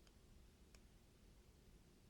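Near silence with two faint, sharp clicks, about three-quarters of a second apart: small metal knife parts being handled.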